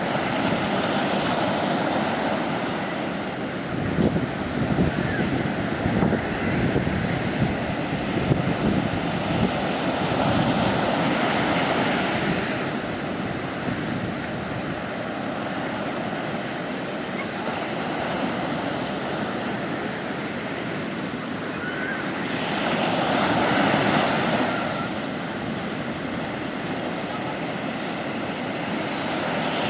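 Mediterranean sea waves breaking and washing up on the beach, a steady wash that swells into a fresh surge every several seconds.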